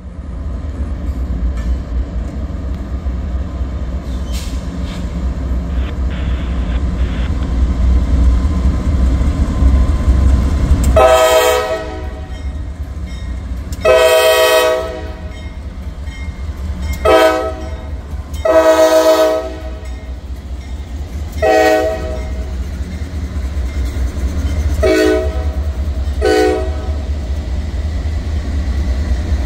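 Diesel locomotives' low rumble building as a Norfolk Southern freight approaches. The lead locomotive's air horn then sounds two long blasts, a short and a long, the standard grade-crossing signal, followed by several short toots, with the engines and wheels rumbling beneath.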